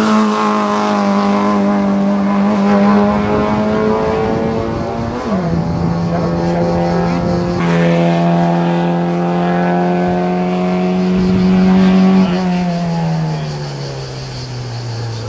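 Peugeot 205 race car's 1.3-litre four-cylinder engine held hard at high revs as it runs up a hillclimb, with a steady high-pitched note. The pitch steps down about five seconds in, and near the end the note sinks and fades as the car pulls away.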